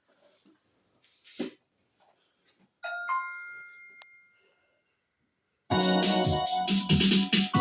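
A faint click, then a portable Bluetooth speaker's startup chime, a few clear tones that fade over about a second and a half, followed about three seconds later by loud keyboard music playing through the speaker.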